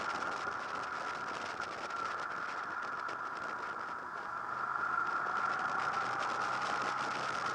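Honda VFR800 VTEC's V4 engine running while riding, heard through a camera mounted on the bike, mixed with wind and road noise and a fast rattling of the mount. The sound grows louder about halfway through.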